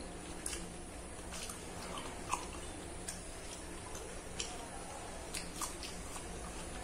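Close-up eating sounds: chewing pork and rice with the mouth open, with irregular wet smacks and sharp clicks, and fingers mixing rice and curry on the plate.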